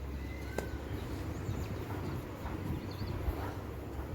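Outdoor ambience: a few faint bird chirps and short calls over a low steady rumble.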